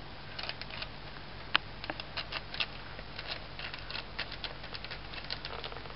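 A kitten batting and pawing at towels, its claws scratching and snagging on the cloth: a quick, uneven run of small scratches and clicks, with one sharper click about a second and a half in.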